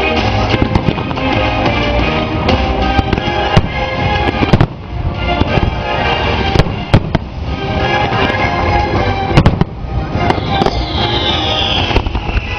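Fireworks bursting in a rapid series of sharp bangs over loud show music, with a falling whistle near the end.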